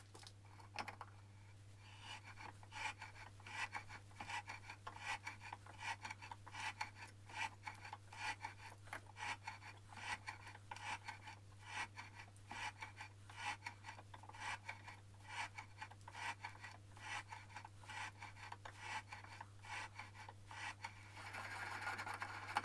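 A hand die in its die stock being worked back and forth on a rod clamped in a vice, taking a light extra cut on the outside thread of an insert. Each short turn gives a dry rasping scrape, about two a second.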